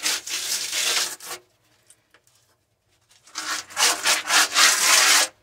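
Wall putty being rubbed in circular strokes over a rough wall with a hand-held applicator, a scratchy scraping. It comes in two spells, the first about a second and a half long, then a pause of about two seconds, then a second spell of about two seconds.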